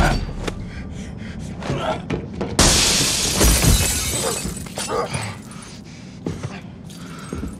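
Fight scuffle with scattered knocks and thuds, then about two and a half seconds in a sudden loud crash of shattering glass that dies away over a second or so.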